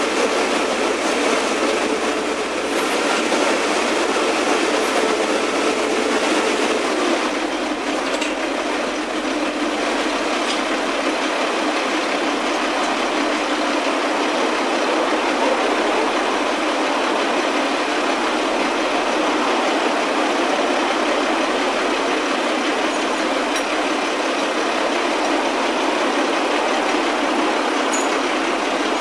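Construction machinery engines, the crane and the boom lift, running steadily, with a slight change in tone about seven seconds in.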